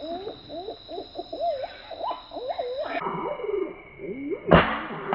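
Green pigeons (punai) calling in a run of short whistled notes that glide up and down. About 4.5 s in comes a single sharp shot from a .177 PCP air rifle, the loudest sound.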